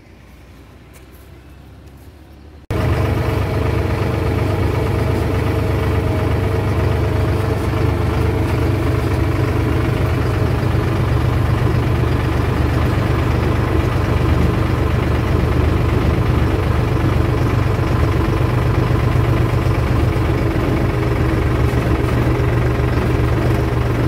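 Farm tractor's diesel engine running steadily while driving, heard from inside the cab. It cuts in abruptly about three seconds in, after a short quieter stretch of outdoor background.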